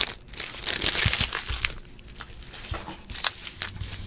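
Foil wrappers of trading-card packs crinkling and tearing as they are ripped open by hand, in irregular crackly spurts: busiest in the first second and a half, then quieter, with another flurry near the end.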